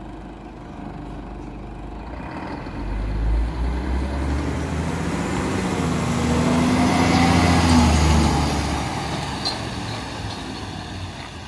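Scania P420 tridem hooklift truck's diesel engine driving past, its sound growing as it comes close, loudest about seven to eight seconds in, then fading as it moves away, with tyre noise on wet asphalt.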